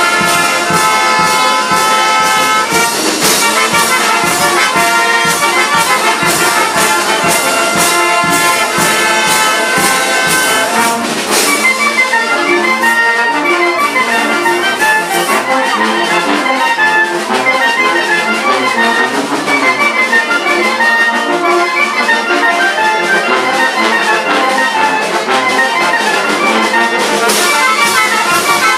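A brass band plays lively dance music, its trumpets and trombones over a steady percussion beat. The percussion drops back about eleven seconds in and comes in strongly again near the end.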